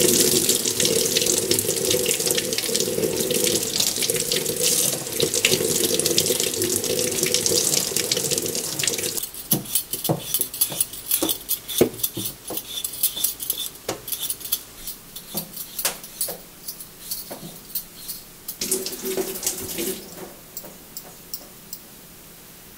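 Kitchen tap running into a stainless steel sink, with hands washing under the stream, for about nine seconds before it is turned off. Then a potato is peeled with a Y-peeler in a series of short scraping strokes, with a brief run of tap water near the end.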